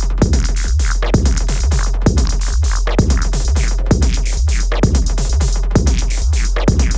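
Hardware techno played live on a Roland drum machine and Elektron grooveboxes: a steady kick about twice a second with a sharper hit on every second beat, busy hi-hats on top and a deep held bass underneath.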